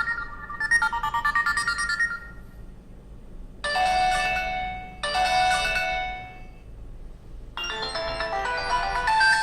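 HTC Desire 610 playing ringtone previews one after another: a melodic tone cut off about two seconds in, the same short chime played twice, then another melodic tone starting near the end.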